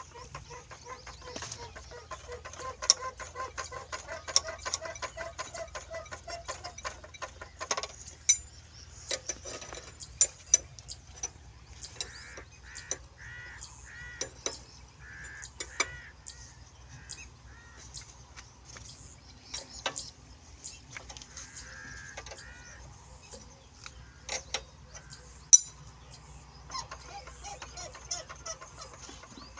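Scattered sharp metallic clicks and taps from hand work on the fuel injection pump of an old stationary Ruston diesel engine, over a low steady hum. Hens cluck in short runs in the background.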